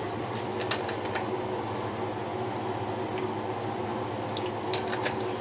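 Steady mechanical hum with a few light clicks and ticks scattered through it. Near the end, a thin stream of chocolate hazelnut liqueur trickles into a saucepan of hot chocolate.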